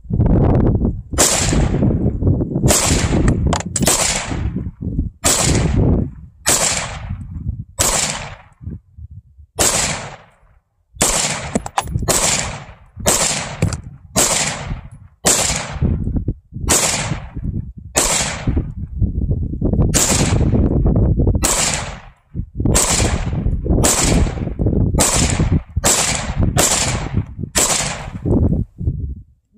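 AR-15 rifle fired semi-automatically in a long steady string of about thirty shots, roughly one a second. Each sharp crack is followed by a brief low rumble.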